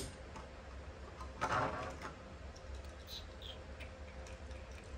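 Die-cast Hot Wheels toy car and its plastic blister packaging being handled on a table: a brief rustle about one and a half seconds in, then a few light clicks.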